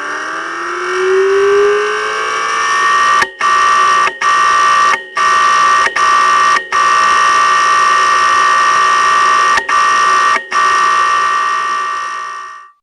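A crashed hard drive spinning up: a whine that rises in pitch over the first couple of seconds, then holds as a steady high whine. About seven brief gaps cut into it, and it stops suddenly near the end. It is a sound of the kind given as the sign of a failed drive whose data needs professional recovery.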